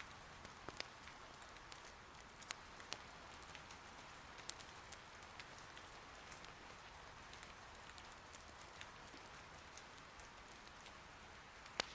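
Soft, steady rain patter with scattered sharp pops and crackles from firewood burning in an irori hearth, the loudest pop near the end.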